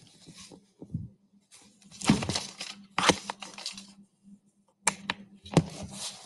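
Irregular rustling and handling noises with several sharp clicks, over a faint steady low hum.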